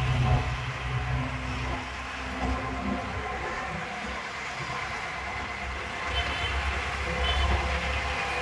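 Auto-rickshaw engine running and road noise heard from inside the moving auto-rickshaw, with traffic passing close by. A steady low engine hum eases off after about three seconds, and a low rumble builds again near the end.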